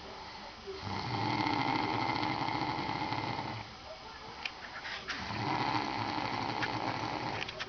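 A man snoring in his sleep: two long snores, each about three seconds, with a quieter breath between them that carries a few short clicks.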